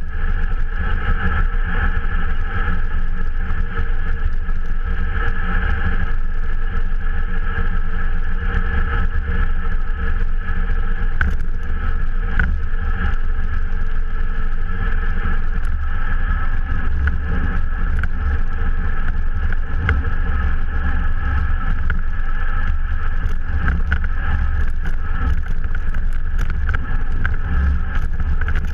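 Bicycle riding at speed on an asphalt road, heard through a GoPro mounted by the front wheel: loud, steady wind and tyre rumble with a constant hum, and occasional light ticks.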